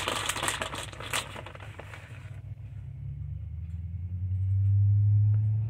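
Plastic bag of shredded cheese crinkling as it is handled and opened. From about halfway in, a low droning hum, like an engine, swells and becomes the loudest sound: a background noise, not from the cooking.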